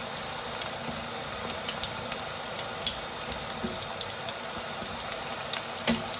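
Breaded potato-and-cheese balls deep-frying in hot oil: a steady sizzle with scattered crackles and pops, and a sharper click near the end.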